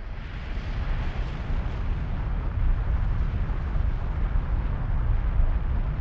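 Volcanic eruption sound effect: a loud, steady deep rumble with a rushing hiss over it, swelling up during the first second.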